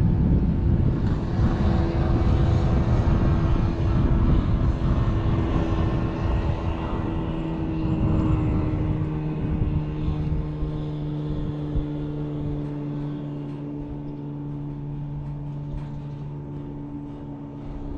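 A motor engine's steady drone over a low rumble, loud for the first half, then fading as its pitch slowly drops, as it passes and moves away.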